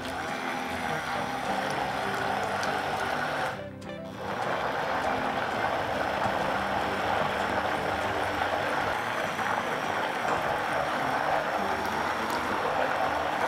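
Immersion blender running in a bowl, puréeing oat flakes, banana and plant milk into pancake batter, with a short break about four seconds in before it runs on steadily. Background music plays underneath.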